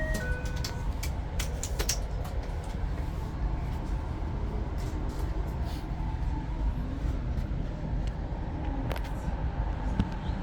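A Hakodate Liner commuter train heard from inside the car: a steady low rumble of wheels on rail with wind noise, and a quick run of sharp clicks in the first two seconds.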